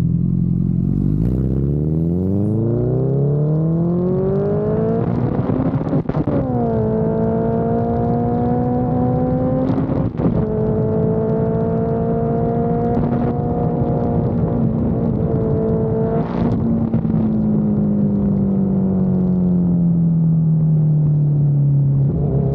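Honda CB1000R inline-four engine pulling up through the revs while riding. There are gear changes about six and ten seconds in. It then holds fairly steady revs and slowly drops in pitch near the end as the bike eases off.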